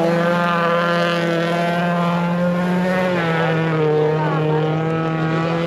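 Folk-race cars' engines running hard at high revs, several engine notes overlapping in a steady drone that drops slightly in pitch about three seconds in.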